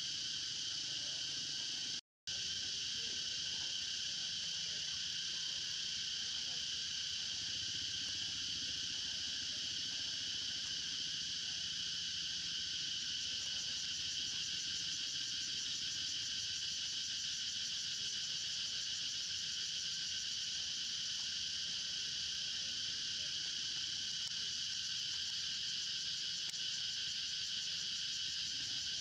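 Steady insect chorus, a dense high-pitched buzzing that holds at an even level throughout, cutting out completely for a split second about two seconds in.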